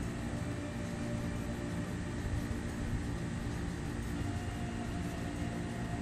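Steady mechanical hum with a few low tones, over an uneven low rumble.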